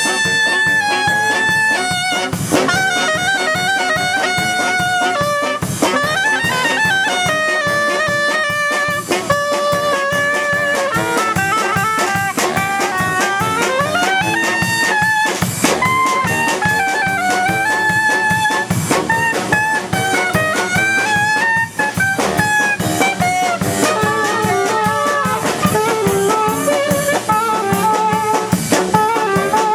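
A small brass band playing a tune: saxophones, tubas and other brass over a drum kit keeping a steady beat.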